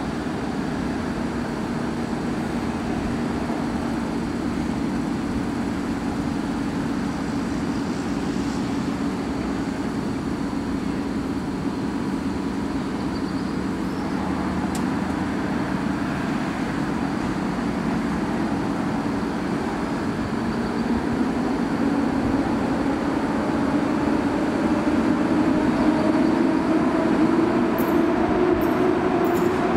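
PKP EP07 electric locomotive humming steadily, then pulling away. From about twenty seconds in, a whine rises in pitch and the sound grows louder as the traction motors gather speed.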